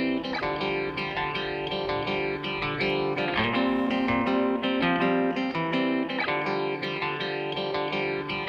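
Instrumental music led by a plucked-string melody of quick, sustained notes, at a steady level.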